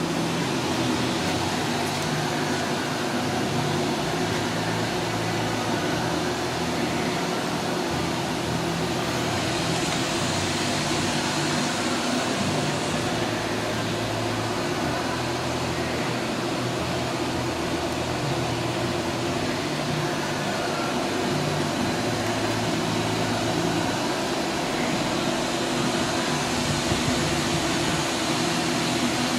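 Doosan DNM 400 CNC vertical machining center running with a steady mechanical hum, holding several steady low tones.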